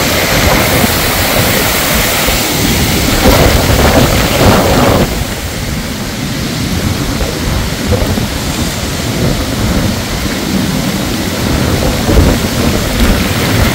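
Muddy floodwater rushing and churning as it cuts a gully along a gravel roadside, loud and steady, with heavy rain. About five seconds in the rushing drops back a little, leaving steady rain noise.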